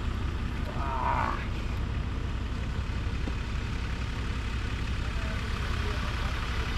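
A vehicle's steady low rumble, with a short shout about a second in.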